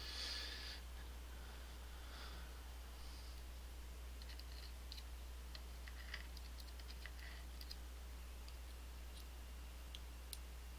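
Faint, scattered clicks and ticks of small lock parts and a pick being handled while driver pins are taken out of an EVVA ICS lock housing, over a steady low hum.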